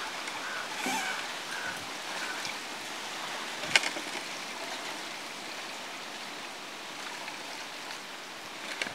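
Water sloshing and trickling as handfuls of leafy greens are washed by hand in a metal pot of water, with one sharp click about four seconds in.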